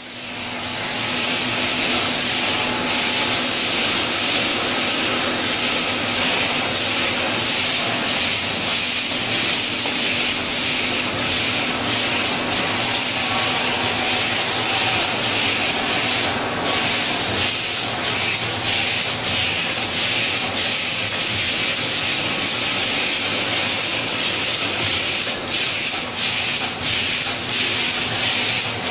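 Steady machine noise of an automated bread-roll handling line, an ABB delta picker robot working over a belt conveyor: an even hiss with a low steady hum under it, rising in over the first second.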